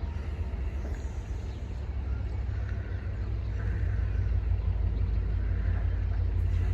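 Low rumble of an approaching Class 66 diesel freight locomotive, growing steadily louder.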